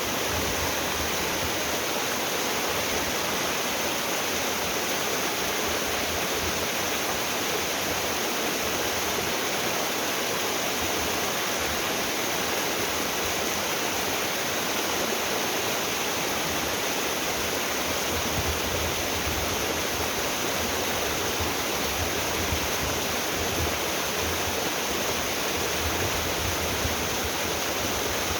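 Yongtang Falls, a mountain-valley waterfall, pouring steadily with an even, unbroken rush of water.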